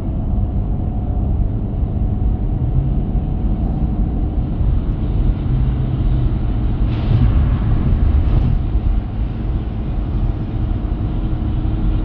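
Vehicle running: a steady low rumble, with two short hissing swells about seven and eight and a half seconds in.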